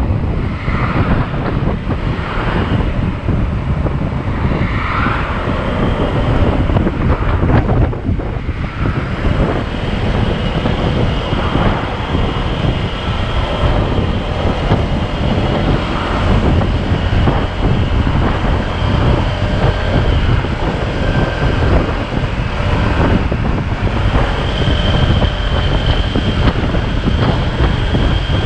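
Steady wind rushing over the microphone while riding a Honda PCX scooter at road speed, with the scooter's engine running beneath it.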